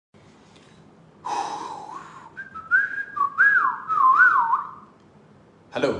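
A man whistling a short tune: a breathy start about a second in, then clear notes sliding up and down in wavy glides, stopping shortly before five seconds.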